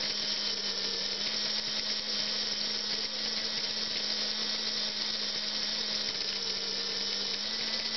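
Small electric can motor of a Playart F7 HO scale model locomotive running freely on a bench test: a steady high-pitched whir over a low hum, which shifts slightly in pitch about a second in and again near the end.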